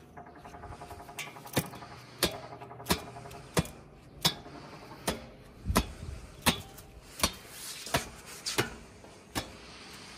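A steady series of sharp knocks, about three every two seconds, beginning a second and a half in.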